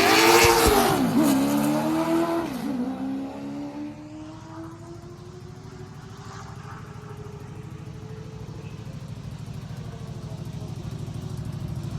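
Late model stock car's V8 engine running hard on a qualifying lap. It is loud for the first few seconds, with the pitch dipping twice as the throttle comes off and back on. Then it is fainter, its pitch and loudness slowly rising toward the end.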